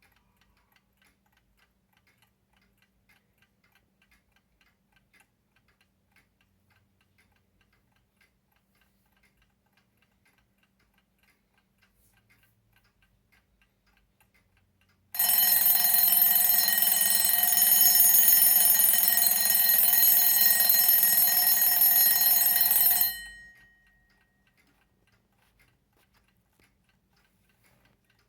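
Herweg repeater alarm clock ticking faintly, then its alarm bell rings loudly for about eight seconds, starting suddenly about fifteen seconds in and dying away with a short ring-out.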